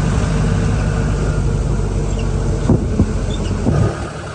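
Vehicle engine and road noise heard from inside a moving vehicle: a steady low rumble, with a few knocks from bumps partway through.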